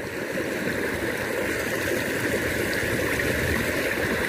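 Water of a small stream flowing steadily, an even rushing sound.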